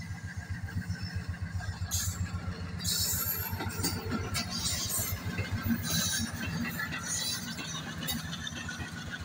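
Two diesel locomotives passing close at speed, their engines giving a steady, rapid low throb, with irregular metallic clanks from the wheels on the track as the locomotives go by.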